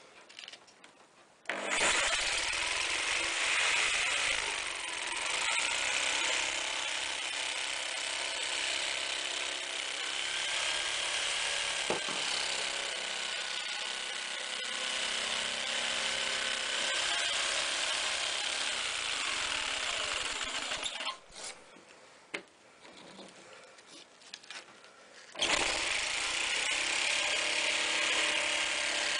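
A power tool's motor running with a steady high whine for about twenty seconds, stopping, then starting again a few seconds later.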